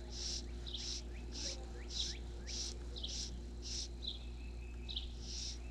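Wild animal chorus: a high call repeats about twice a second, with short chirps and faint rising peeps mixed in, over a faint steady hum.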